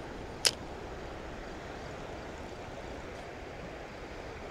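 A steady rush of wind and river water, with one sharp click about half a second in from a spinning reel handled just after a cast.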